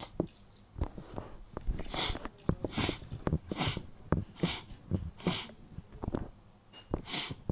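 Cartoon digging sound effect: a shovel scraping into sand again and again, a short hissy scrape about every 0.8 s, starting about two seconds in with a short break near the end.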